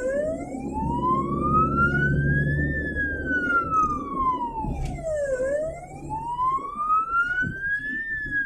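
Ambulance siren on a slow wail, its pitch rising for nearly three seconds and falling back for about as long, twice over, heard from inside the ambulance's cab over its engine and road noise.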